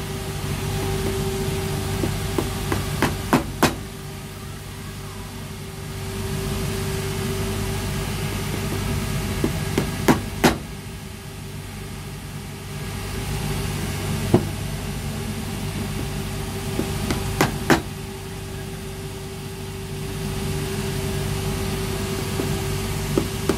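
Brass rivets being driven into a leather shoe heel: short runs of light taps that get sharper within each run, coming in a few separate groups, over the steady hum of workshop machinery.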